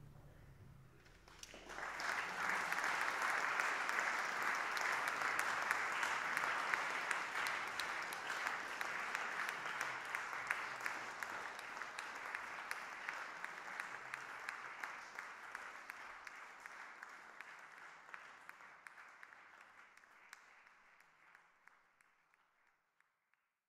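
Audience applauding. The clapping starts about a second and a half in, holds steady for several seconds, then gradually thins and fades out near the end.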